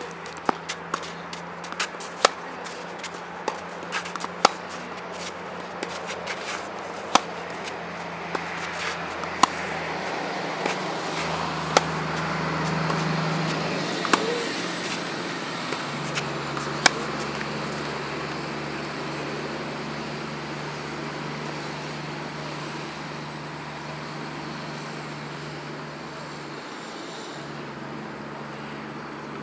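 Tennis balls struck back and forth in a baseline rally: sharp racket-on-ball pops about every two and a half seconds, with fainter bounces between, stopping about 17 seconds in. Steady low background noise underneath throughout.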